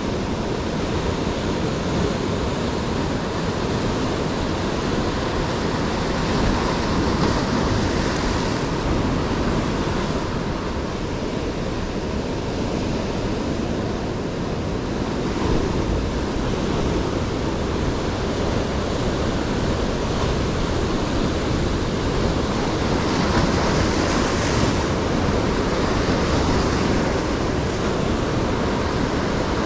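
Rough sea surf washing and breaking over shoreline rocks, a continuous rushing wash that swells louder twice, once about seven seconds in and again around twenty-four seconds in.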